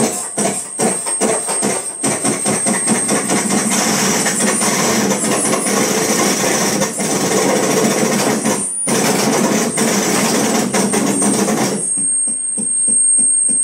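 Live noise-music performance: a dense, crackling wash of noise full of rapid irregular clicks, with a steady high whistle over it. The noise drops out for a moment past the middle, then stops near the end, leaving the high whistle and a quieter hiss.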